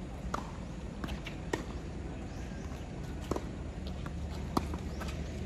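Tennis ball struck by rackets and bouncing on a hard court during a doubles rally: sharp pops about every second and a half, the loudest near the end, over a low steady rumble.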